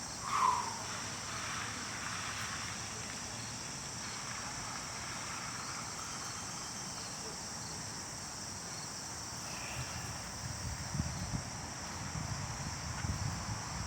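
Steady high-pitched chorus of crickets, with one short sound about half a second in. Low, uneven rumbling comes in near the end.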